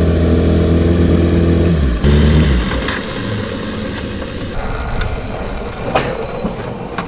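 BMW superbike engine running at a steady low pitch, then winding down with a falling note and stopping about two and a half seconds in. After that come quieter garage sounds with two sharp knocks near the end.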